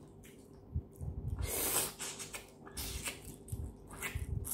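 Close mouth and hand sounds of eating a cooked shrimp: a short hissing in-breath about a second and a half in, then soft smacking and small clicks as the shrimp goes to the mouth.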